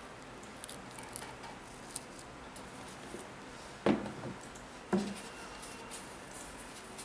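A sneaker being handled: faint rustling of the shoe and its insole, with two dull knocks about a second apart, a little before halfway, as the shoe is set down and moved on its cardboard shoebox.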